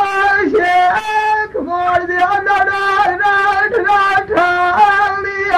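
A male folk singer sings a Punjabi dhola in long, held notes, sliding briefly between pitches.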